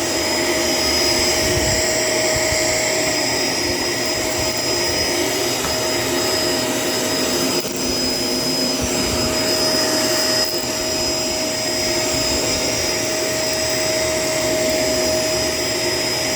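Shark LA702 Lift-Away upright vacuum cleaner running steadily as it vacuums the floor: a constant motor whine with a slight dip about eight seconds in.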